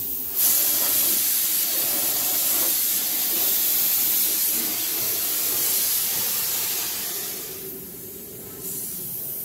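Compressed-air paint spray gun hissing steadily as it sprays paint. The hiss starts about half a second in and drops off to a quieter level near the end.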